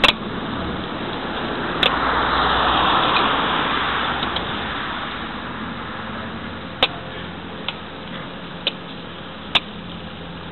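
A car passing on the street: tyre and engine noise swelling for a couple of seconds, then fading. About six sharp clicks and knocks are scattered through it.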